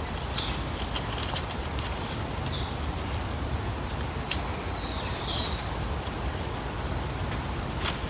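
Forest ambience: a steady rush of wind with a low rumble, a few short bird chirps scattered through, and a few sharp clicks like twigs snapping.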